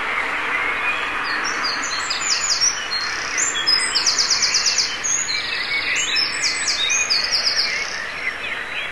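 Dawn chorus of songbirds. One nearby bird sings a loud, fast song of high trills and rapid repeated notes, about six seconds long, over many fainter chirps and calls from other birds.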